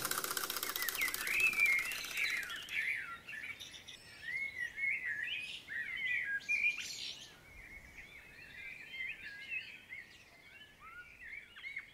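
Small birds chirping and singing, many quick, varied calls overlapping, livelier in the first half and fainter later on.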